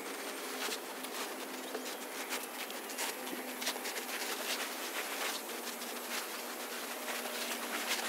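Water sprinkled lightly onto wet garden soil, falling in an irregular patter, with a faint steady insect buzz behind it.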